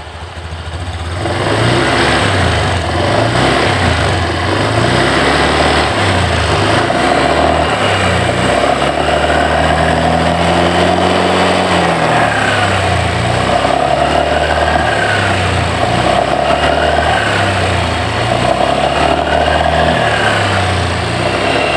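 Honda Scoopy scooter's single-cylinder engine and CVT running, revved up and down repeatedly in the low range, with a rough growl ('ngorok') that shows below about 60 km/h and goes away at higher revs. The mechanic takes the growl for a construction (design) fault rather than worn parts.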